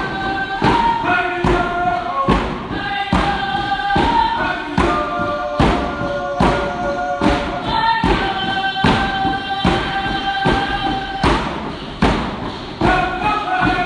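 Alaska Native dance song: hand drums struck together in a steady beat, a little more than one stroke a second, under a group of voices singing in unison with long held notes.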